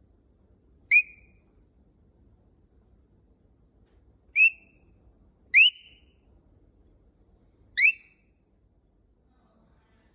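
Four short rising whistle notes, each a quick upward swoop, spaced irregularly: one about a second in, two close together around the middle, one near the end.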